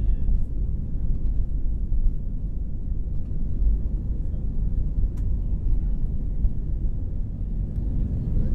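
Airbus A320 cabin noise during the takeoff roll, heard from a window seat over the wing: the engines at takeoff thrust and the wheels on the runway make a steady, loud, deep rumble.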